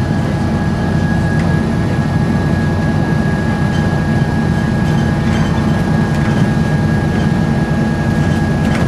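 Volvo B7RLE bus engine running at a steady pace: a constant low drone with a thin, steady high whine over it.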